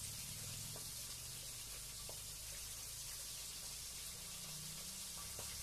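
Pieces of salem fish frying in oil in a pan: a steady, quiet sizzle, with a few faint clicks of a spatula against the pan.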